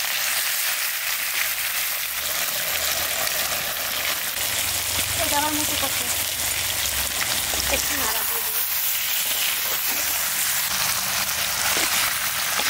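Marinated katla fish pieces sizzling in hot mustard oil in a clay handi, with a spatula stirring them near the end.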